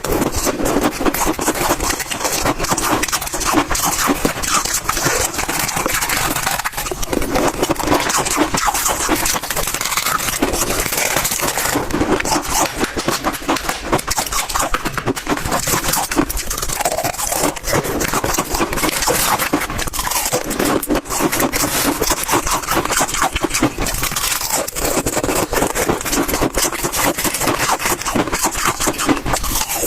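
Freezer frost being chewed in big mouthfuls close to the microphone: continuous, dense crunching and crackling.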